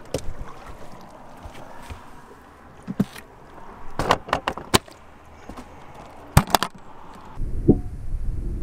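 Knocks and clacks from a hard plastic fish cooler being opened and shut, its lid and latches striking, with a cluster of clatters in the middle as fish go in on the ice. About seven and a half seconds in the sound changes to a dull low rumble and pattering heard underwater.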